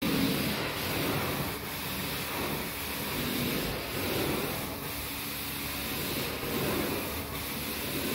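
Hot water extraction carpet-cleaning wand sucking water and air out of the carpet: a steady rushing hiss that rises and falls a little in level as the wand is worked.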